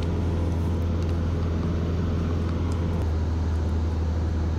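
Cessna 152's four-cylinder Lycoming O-235 engine and propeller droning steadily in flight, heard inside the cockpit, with a strong low hum over a rushing noise.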